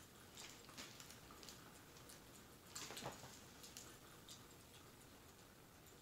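Faint crackling of a recorded wood fire: irregular soft pops and snaps, with a slightly louder cluster about three seconds in.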